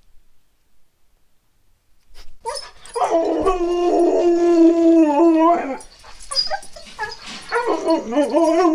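Husky-type dog howling: a long, steady howl begins about two seconds in, then near the end a wavering howl that bends up and down in pitch.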